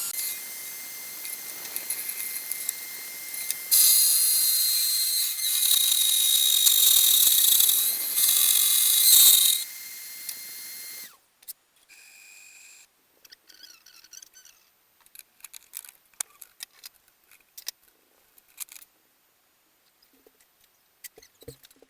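DIY CNC router milling a test part: the spindle whines at a steady pitch while the cutter bites into the material in several louder stretches. The spindle and cutting stop abruptly about eleven seconds in, leaving only faint scattered clicks.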